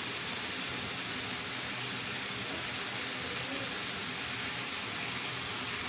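Steady, even hiss of food sizzling in a covered pan on the stove.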